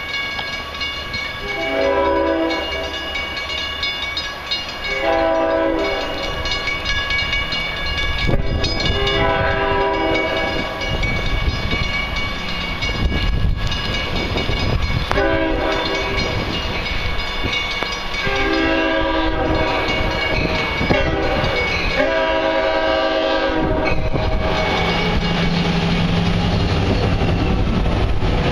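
LIRR DE30AC diesel locomotive sounding its horn as it approaches, six blasts of one to two and a half seconds each, over the steady ringing of grade-crossing bells. Near the end the locomotive comes past close by with a low rumble from its diesel engine.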